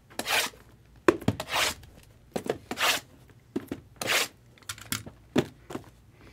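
Packaging being handled: a series of short crinkling, tearing rustles, with a sharp knock or two about a second in.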